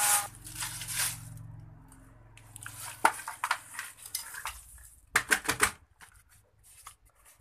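Clutter being shifted by hand: a plastic bag rustling and hard objects clattering and knocking together, with a cluster of sharp knocks about three seconds in and another about five seconds in.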